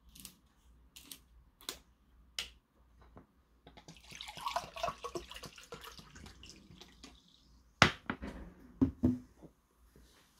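Makgeolli gurgling as it is poured from a plastic bottle into a glass mug for about three seconds, after a few clicks from the bottle cap being handled. About eight seconds in the bottle is set down on the table with a loud knock, and one or two lighter knocks follow.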